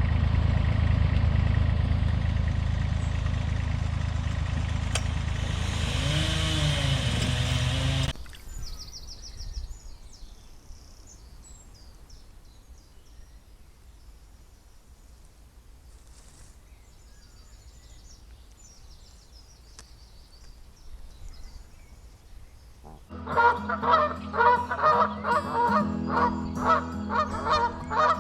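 A loud steady low rumble that cuts off about eight seconds in, then a quiet stretch with faint small-bird chirps, then a flock of geese honking loudly and repeatedly for the last few seconds.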